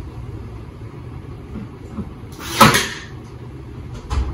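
Laminate flooring planks being knocked and set into place: one loud knock about two and a half seconds in and a lighter one near the end, over a low steady rumble.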